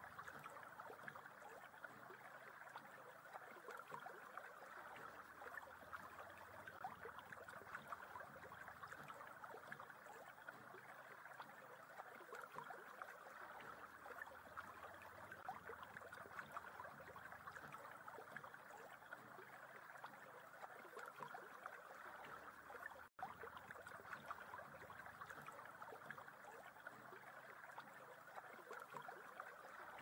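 Faint, steady rush and trickle of a shallow stream running over rocks, cutting out for an instant about two-thirds of the way through.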